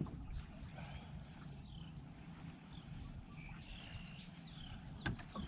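Small birds chirping in quick, high runs, faint over a low steady rumble, with a couple of sharp clicks near the end.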